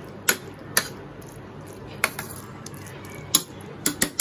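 A spoon knocking and scraping against an aluminium pressure cooker while spreading a sauce topping over rice: a handful of sharp, irregularly spaced knocks.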